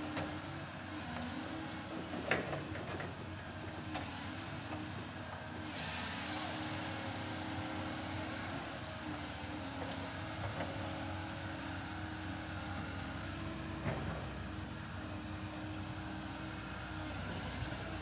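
Diesel engine of a Cat knuckleboom log loader running under load as it works its boom, the engine note stepping up and down. There are a couple of sharp knocks, about two seconds in and near fourteen seconds, and a burst of hiss about six seconds in.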